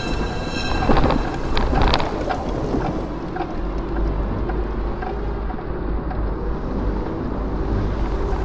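Nissan Patrol Y60 driving over a rough dirt track, heard from the cab: a steady low engine and road rumble with a few sharp knocks and rattles as it bumps over ruts, the loudest about one and two seconds in.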